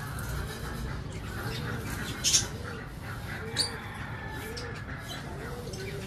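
White doves cooing over and over, a low rising-and-falling coo about once a second. Two short sharp puffs, breath blown over a bowl of millet to clear the chaff, stand out about two and a half and three and a half seconds in.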